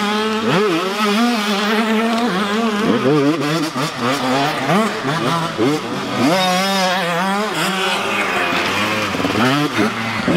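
Small motocross dirt bikes riding through a tight corner one after another, the engines revving up and easing off several times as the throttle is fed through the turn.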